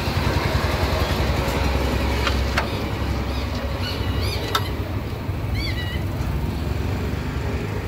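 4 hp water-cooled single-cylinder diesel engine running at a steady speed, a dense rapid chugging.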